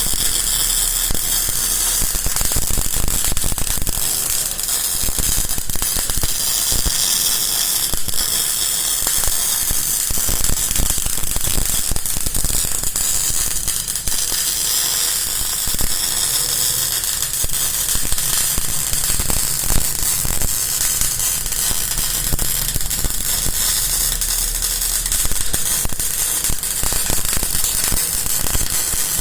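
MIG arc of a bore welder crackling steadily as it builds up weld inside a bore, a dense stream of irregular clicks over a hiss.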